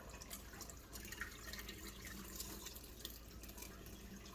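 Faint dripping and trickling of water from freshly washed basmati rice as it drains, with scattered small ticks and drips.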